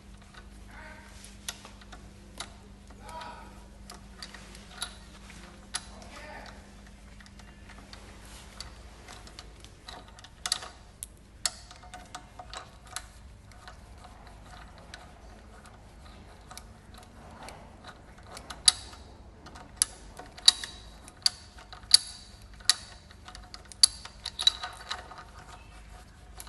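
Scattered small metallic clicks and clinks of bike parts and tools being handled, with a run of sharper, ringing clicks about once a second in the last third.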